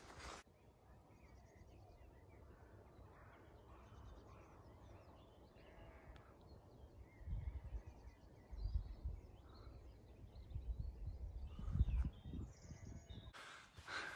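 Faint songbirds chirping here and there over a low rumble, with a few louder low thumps about halfway through and again near the end.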